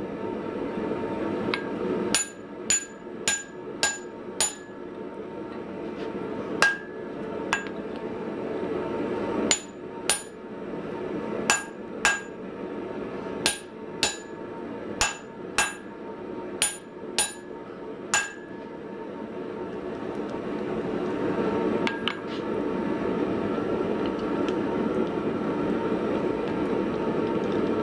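Hand hammer driving a drift through the punched eye of a small hot hammer head: about nineteen ringing metal blows, often in quick pairs, shifting the eye that sits slightly off centre. The blows stop about two thirds of the way in, leaving a steady rushing noise that grows louder.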